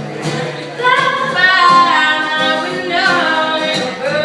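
Women's voices singing together in harmony in a live performance, the voices coming in strongly about a second in.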